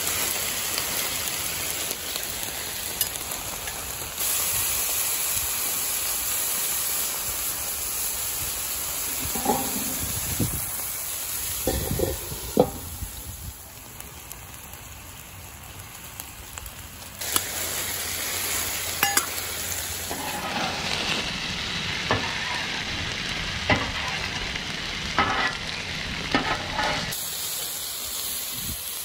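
Beef strips and broccoli sizzling on a Blackstone flat-top griddle: a steady frying hiss, with the sharp scrape and tap of a metal spatula turning the food now and then. The sizzle is quieter for a few seconds in the middle.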